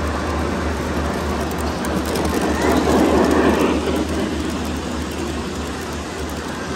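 Model train running on an exhibition layout, growing louder as it passes close about three seconds in, then fading back into the steady hall noise and low hum.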